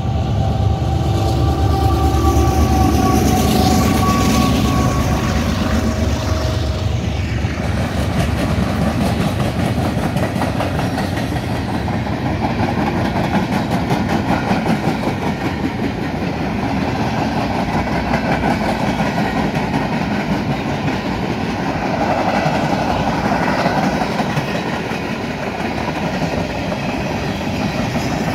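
CSX diesel locomotives passing close by for the first several seconds, with a steady tone above the rumble that dips slightly in pitch before it fades. Then a long string of empty flatcars rolls past with steady wheel clatter on the rails.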